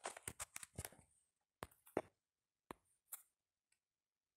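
Near silence broken by a few faint, short, irregular clicks in the first three seconds or so.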